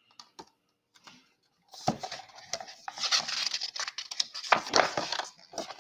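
Page of a picture book being turned by hand: paper rustling and sliding, with a few small knocks. It starts about two seconds in and lasts about three and a half seconds.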